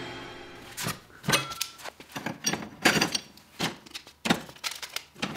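Angle-grinder discs and tools being handled at a pegboard tool wall: a quick, irregular run of knocks and clinks.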